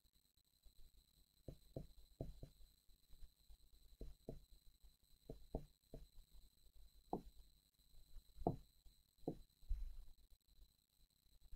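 Faint, irregular taps and knocks of a stylus on an interactive smartboard screen as pollutant marks are drawn, the loudest knock about eight and a half seconds in. A faint steady high electronic whine runs under them.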